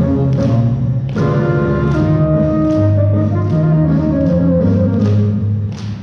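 Instrumental music with sustained pitched notes, a moving bass line and sharp percussive hits.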